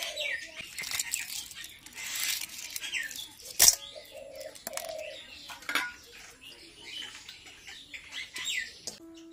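Small birds chirping over and over, each short call falling in pitch, with the faint crackle of shells being peeled off boiled eggs and one sharp knock about three and a half seconds in. Music starts just before the end.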